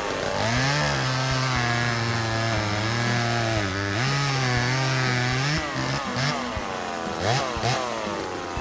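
1976 Homelite Super 2's 31cc two-stroke chainsaw engine running at high revs while cutting wood. Its pitch sags about four seconds in and recovers, and it gives a few quick revs near the end.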